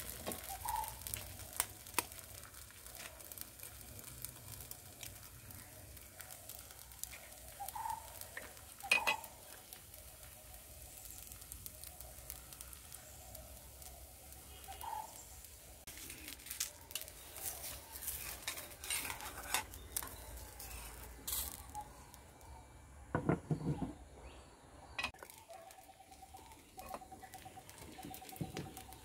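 Hopper batter sizzling softly in a small iron appachatti over a wood fire, with scattered taps and knocks as the pan is handled and an egg goes in.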